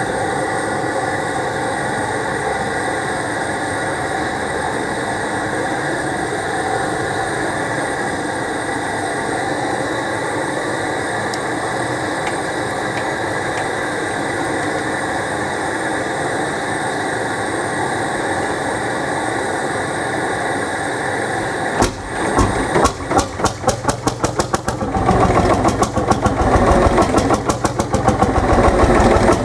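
Propane burner running steadily as it heats the hot-bulb head of a Lanz Bulldog's single-cylinder two-stroke engine. About 22 seconds in, the engine is turned over by the steering wheel set in its flywheel and fires: a few uneven pops at first, then it catches and runs with a fast, regular beat.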